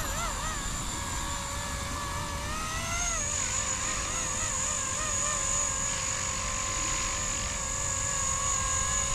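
Blade CP235 electric collective-pitch RC helicopter in flight: a high motor-and-gear whine over the rotor blades. The pitch climbs about three seconds in, then holds fairly steady with small wavers.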